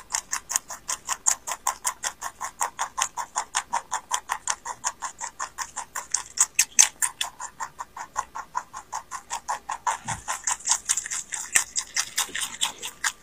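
Lop-eared rabbit chewing a stalk of leafy greens: a fast, even crunching of about six chews a second.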